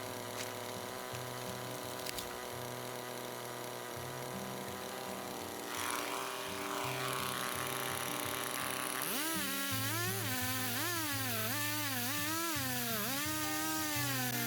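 Background music with a steady bass line; from about nine seconds in, a small two-stroke chainsaw engine revs up and down over and over.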